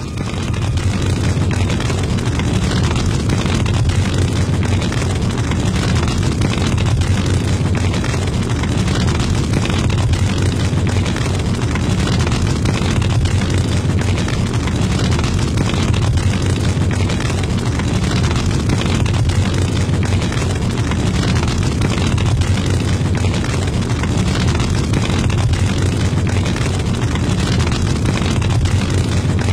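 A steady, loud, deep rumbling noise with no clear pitch, fading in at the start and then holding even throughout.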